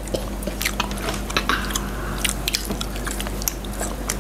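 Close-miked chewing of latiao, spicy Chinese gluten snack strips: irregular small mouth clicks, with no speech.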